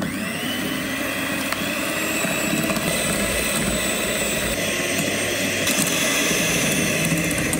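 Electric hand mixer running, its motor whining steadily after speeding up right at the start, with the beaters whipping egg whites and sweetener into stiff foam in a glass bowl.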